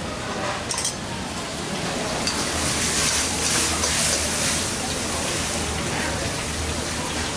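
A metal spoon clinks a few times against a steel container about a second in. Then sauce sizzles and bubbles in a wok over a high gas flame, with a ladle stirring, the hiss swelling to its loudest mid-way over a steady low hum.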